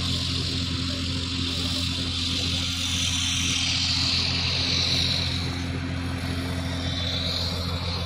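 Heavy diesel construction machinery running steadily: a constant low engine drone, with a higher hiss that swells and fades around the middle.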